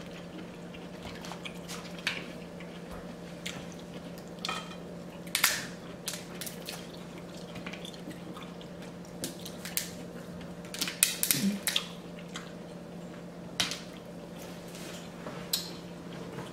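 Close-miked eating sounds: chewing and lip smacking, with scattered short clicks of forks and dishes, over a steady low background hum.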